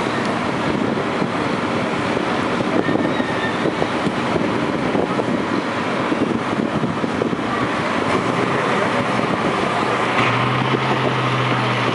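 Farm tractor engine running hard under full load while dragging a pulling sled, a dense, steady rapid pulsing of the exhaust. About ten seconds in, a steady low drone comes up in the engine note.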